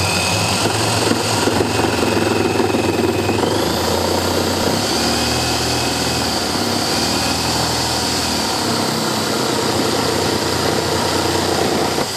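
Bosch GST 8000 E corded jigsaw running steadily while cutting through a block of wood. Its pitch shifts about four to five seconds in, and the saw stops at the very end.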